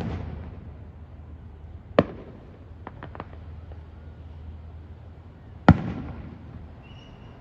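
Aerial firework shells bursting in the distance. A bang comes right at the start and another about two seconds in, then a few faint cracks, and a loud boom near six seconds that trails off as it echoes away.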